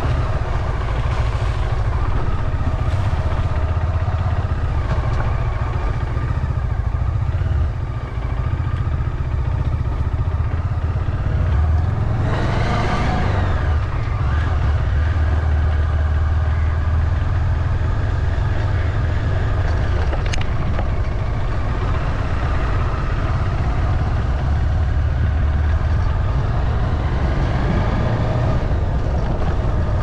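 Motor vehicle running steadily along a road, with a heavy low rumble underneath. A louder sound swells and fades about twelve to fourteen seconds in, like another vehicle passing.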